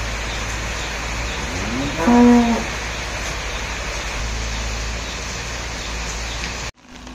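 A cow moos once, a short call that rises and then holds, about two seconds in, over the steady hiss of rain.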